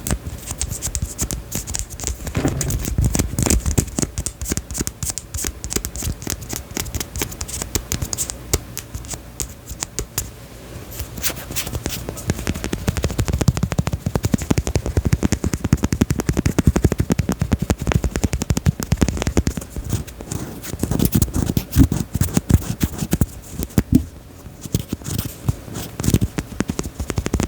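Close-miked ASMR tapping and scratching: a rapid, continuous run of small clicks and crackles that thins out briefly about ten seconds in, then picks up again.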